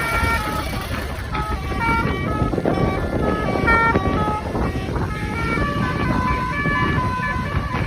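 Basuri multi-tone telolet horn on a bus playing a long melody, its notes stepping up and down every fraction of a second, over a low rumble.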